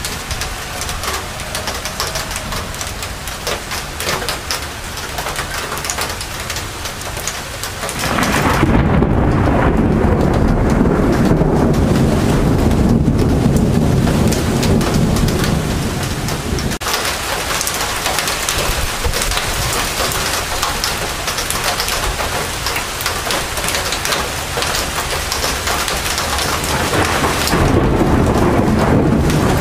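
Steady rain falling during a thunderstorm, with two long rolls of thunder. The first starts about a quarter of the way in and rumbles for about eight seconds; the second begins near the end.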